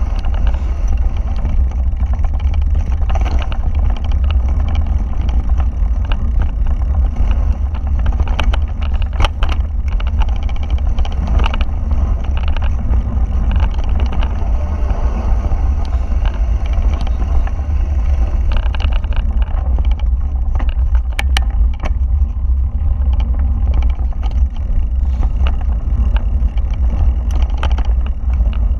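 Wind buffeting a GoPro's microphone as a mountain bike rides fast along a rough dirt trail, heard as a steady deep rumble. Frequent clicks, knocks and rattles from the bike jolting over rocks and roots run through it.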